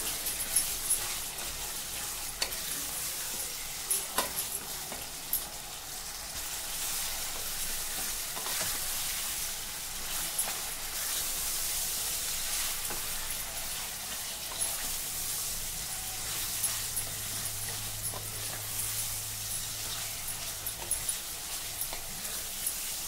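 Mutton pieces and fried onions sizzling in hot oil in a pressure cooker pot as they are browned, stirred with a wooden spatula that knocks and scrapes against the pot every few seconds.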